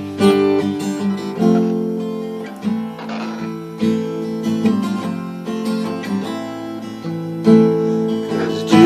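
Acoustic guitar strumming a slow run of chords, each chord struck and left to ring, with no singing.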